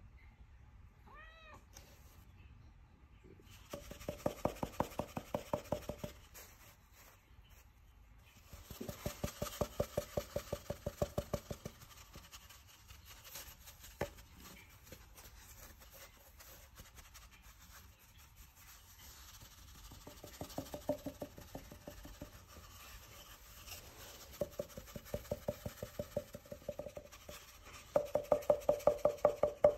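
Siberian forest kitten giving a short rising-and-falling chirp about a second in, then several stretches of rapid, pulsing, rolled vocal sound, each two to three seconds long, the last the loudest. A single sharp tap comes near the middle.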